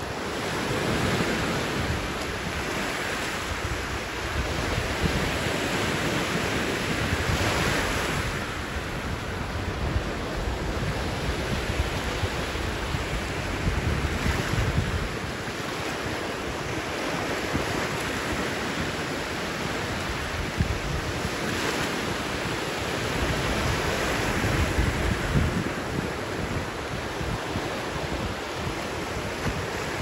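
Small lake waves breaking and washing up a sand beach: a steady wash that swells every several seconds, with wind buffeting the microphone.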